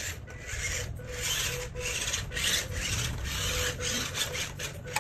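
WPL C64-1 RC truck's small electric motor and plastic gearbox whirring with a raspy sound in short, uneven surges as it is driven and steered. Its tyres scuff on a hard wooden floor.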